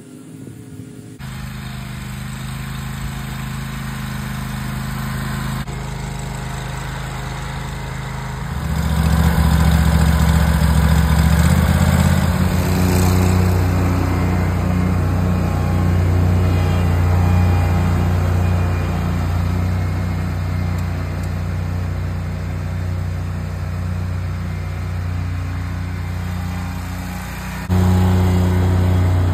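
Wright stand-on zero-turn mower's engine running steadily at a constant speed. It gets abruptly louder about eight seconds in and again near the end, where shots are cut together.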